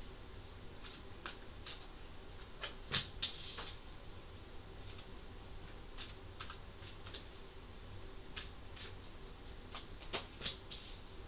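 Tarot cards being peeled off a deck and dealt onto the table: irregular sharp card snaps and short slides, loudest about three seconds in and again near ten seconds.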